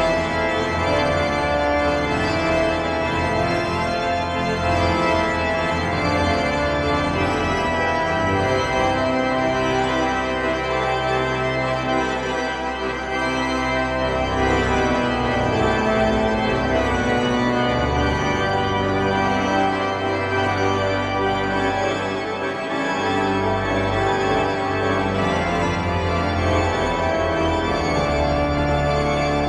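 The York Minster pipe organ playing slow, held chords over deep pedal notes that change every few seconds.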